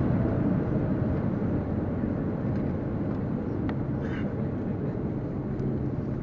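Cabin noise of an Airbus A330 rolling out after landing, heard from a window seat over the wing: a steady low rumble of engines and airflow that slowly dies away as the airliner decelerates on the runway.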